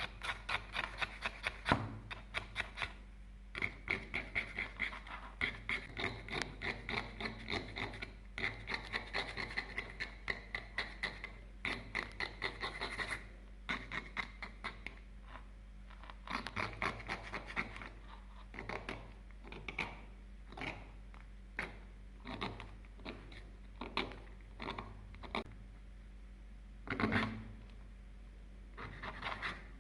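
Hand-rubbing strokes of a file or abrasive on the rusty metal of an antique Persian rug weaver's tool, scraping off rust. About three quick strokes a second at first, then sparser groups of strokes with short pauses, and one longer stroke near the end.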